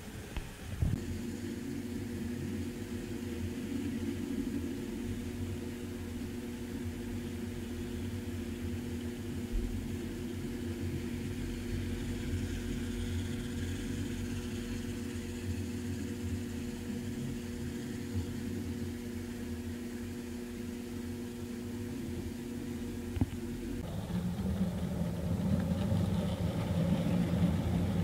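Model diesel locomotive running on an O-gauge layout: a steady hum and rumble from its motors and wheels on the track, the tone changing about 24 seconds in as the train moves past.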